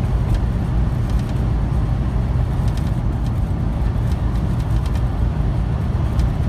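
Steady low drone of a semi truck's diesel engine and road noise heard from inside the cab while cruising at highway speed.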